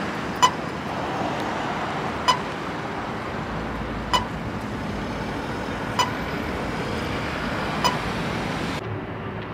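Pedestrian crossing push button's locator tone: a short, sharp beep repeating evenly about every two seconds, five times, over steady road traffic. It sounds on its own without the button being pressed, marking where the button is for vision-impaired pedestrians.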